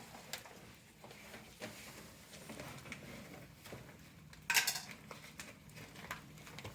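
Handling noise: scattered light clicks and rustles of objects being moved about, with a louder, brief clattering rustle about four and a half seconds in.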